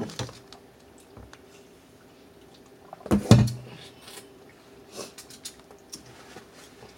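Eating sounds of a seafood boil: chewing and mouth smacking on corn and crab legs, with scattered soft clicks. A louder sound lasting under half a second comes about three seconds in.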